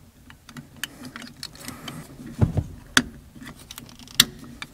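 Small clicks and rustling of wiring as spade connectors are worked off and pushed onto a turn-signal flasher under a car's dash. Sharper clicks come about halfway through, at about three seconds and near the end.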